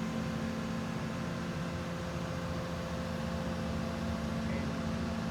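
Excavator engine running steadily, a constant even hum with no change in speed.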